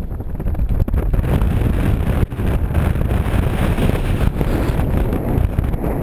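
Strong wind buffeting the microphone: a loud, uneven rumble.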